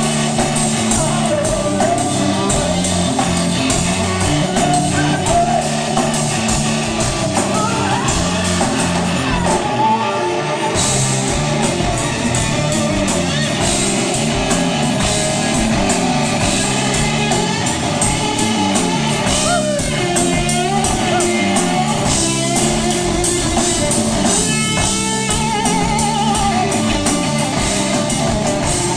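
Rock band playing loud: electric guitar riffs over bass and drum kit, with a singer's voice.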